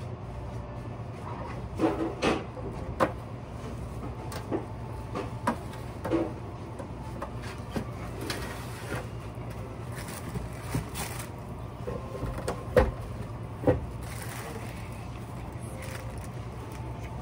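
Scattered knocks and light clatter of items being handled, with a brief rustle of plastic bags near the end, over a steady low hum.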